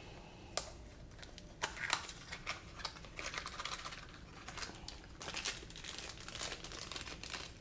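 A clear plastic parts baggie and a small cardboard box are handled as a small drone motor is unpacked: plastic crinkling with light clicks and taps, busiest in the second half.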